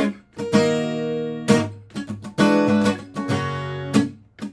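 Acoustic guitar strumming a chord progression: about six chords struck, each left to ring briefly before being damped for the next.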